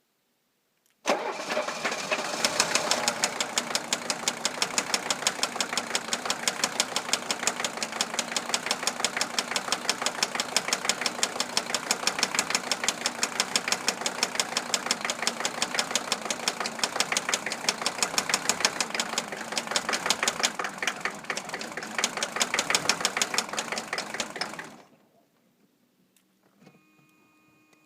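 1982 Mercedes-Benz 300SD's five-cylinder turbo diesel starts about a second in and runs with a fast, even knock, then shuts off near the end. The owner says the knock sounds like a rod but seems to come from the fuel distributor, and the engine still seems starved of fuel.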